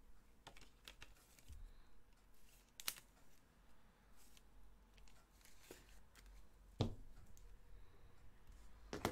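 Quiet room tone with a low hum, broken by a few scattered sharp clicks and taps from small objects being handled, the loudest near the end.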